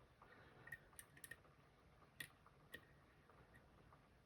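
Faint, irregular clicks of a lock pick working the barrel drivers of an Assa Guideline lock, the pin stacks clicking up through their milling. About half a dozen light ticks, mostly in the first three seconds.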